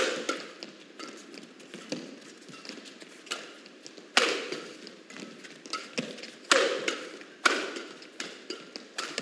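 Badminton rackets striking a shuttlecock back and forth in a rally: about nine sharp hits at irregular intervals, each with a short echo in the hall. The three loudest come in the second half.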